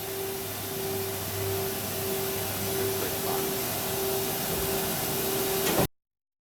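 Everising P-230B circular sawing machine running, a steady whirring with a mid-pitched tone that pulses a little over once a second; the sound cuts off abruptly near the end.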